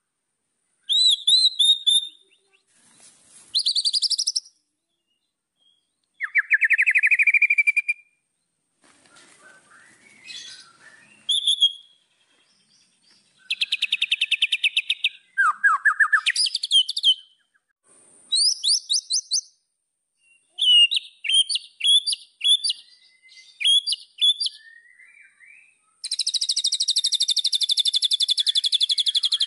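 White-rumped shama (murai batu) singing a varied song of short whistled phrases, fast trills and several downward-sweeping notes, with brief pauses between phrases. Near the end comes a long, fast rattling trill.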